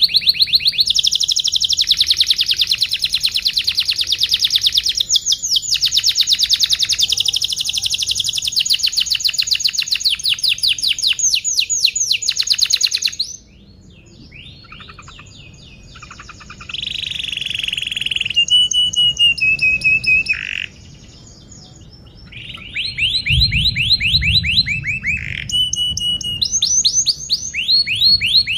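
Domestic canary singing: a long, fast rolling trill for about the first thirteen seconds, then shorter trill phrases broken by a few held whistled notes.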